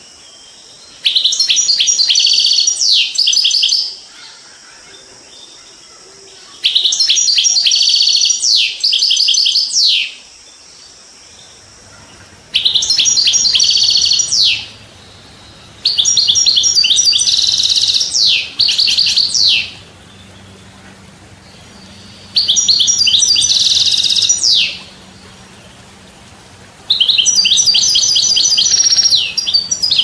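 European goldfinch singing: six bouts of fast, twittering song with rapid up-and-down glides, each about three seconds long, with pauses of a few seconds between them.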